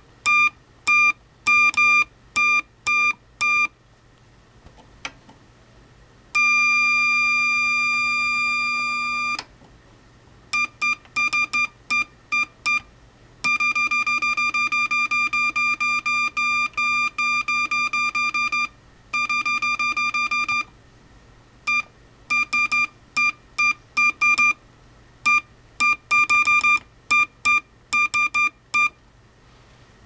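Hallicrafters HA-1 T.O. Keyer sending Morse code through its built-in monitor speaker, a buzzy beep tone keyed on and off in dots and dashes. About six seconds in comes one long held tone lasting some three seconds. It is followed by runs of fast dots that almost blur together, then more spaced-out characters near the end.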